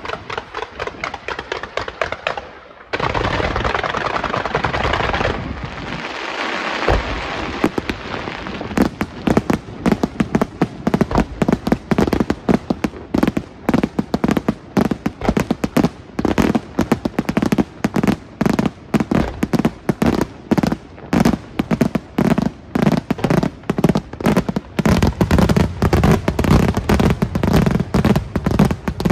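Fireworks display. A dense crackle of bursts fills the first several seconds, then a fast, loud barrage of sharp bangs follows, several a second.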